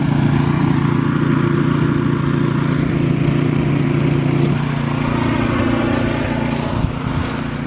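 A snowblower's small petrol engine running steadily, with its pitch shifting slightly about halfway through.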